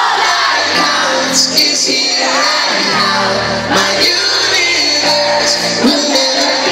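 Live pop song played loud through an arena PA: a lead vocal sung into a microphone over the band's backing music, with fans screaming and shouting along in a large hall.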